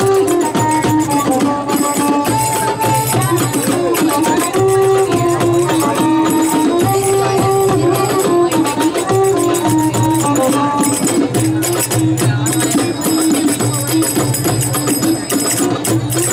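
Live music for tribal belly dance: a melody in held notes stepping up and down over steady percussion.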